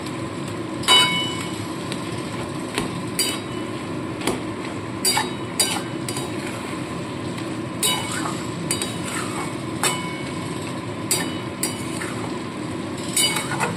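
Flat metal spatula stirring in an aluminium kadai, scraping and clinking against the pan about a dozen times at irregular intervals, with one ringing clink about a second in. A steady hiss of the cooking runs underneath.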